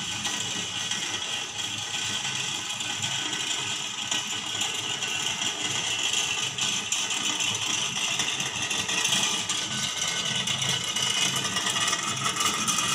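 Sky ride chairlift's haul cable and chair running over the steel cable wheels: a steady mechanical rattle that grows louder toward the end as the chair nears the wheel tower.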